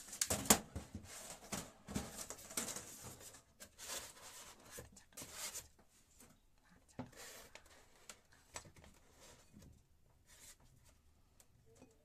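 Handling noise as a glass bottle is worked onto a small fountain pump's outlet tube in a styrofoam tray: irregular scraping and rustling bursts for the first half, then scattered knocks and clicks as the bottle is stood upright.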